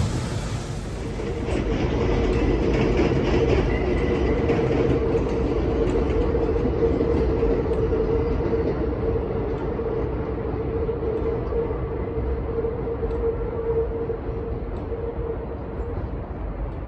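EMD MP15AC diesel switcher locomotive and its train running past, a continuous rail rumble with a steady tone held over it that fades out near the end.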